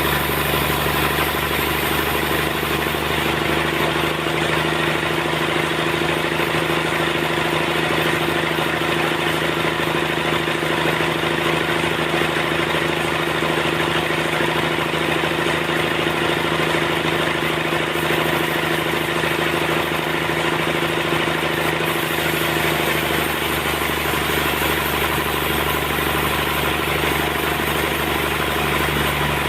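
Sawmill machinery running steadily, a loud, even engine-like hum whose pitch holds constant.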